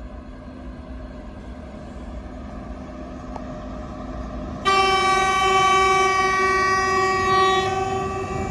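A 3ES4K electric locomotive approaching at the head of a freight train, its running noise slowly growing louder. About halfway through it sounds one long horn blast, which starts suddenly and holds for about four seconds.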